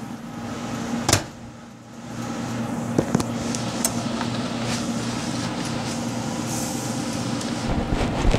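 Steady low mechanical hum of a kitchen appliance, with a few sharp clicks and clinks of metal tongs and a steel frying pan being handled, once about a second in and several times around three to four seconds in.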